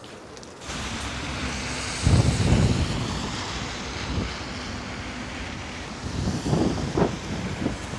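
Wind buffeting the microphone over a steady hiss of street and traffic noise in falling snow, with strong gusts about two seconds in and again near the end.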